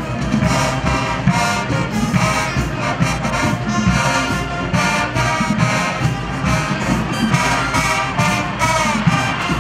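Marching band playing while marching across the field: massed brass and saxophones over a steady drum beat.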